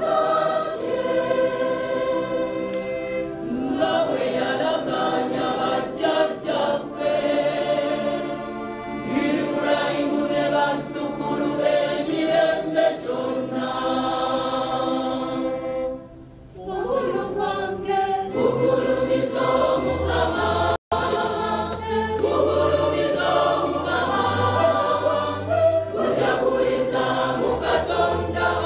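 A choir of religious sisters sings a Luganda Catholic hymn. There is a short pause a little past halfway, after which low steady bass notes join the voices. The sound drops out for an instant soon after.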